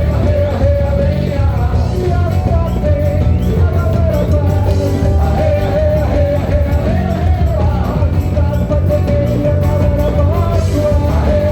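A live carnival band playing loud amplified music with a singing voice over heavy bass and a steady beat.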